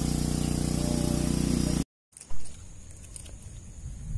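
An engine running steadily with a low hum, which cuts off abruptly about two seconds in; a single thump follows, then quiet outdoor background.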